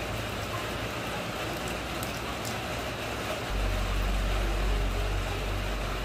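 Steady rain falling onto wet ground and splashing into a puddle: an even hiss of drops. A deep low rumble comes in about halfway through and carries on.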